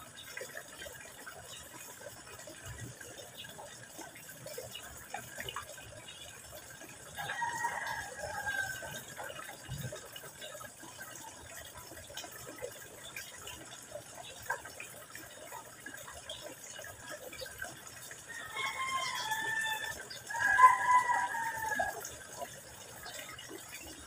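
Thin stream of water trickling from a pipe into a garden pond. Over it come three drawn-out animal calls, each falling in pitch at the end: one about a third of the way in and two close together near the end, the last the loudest.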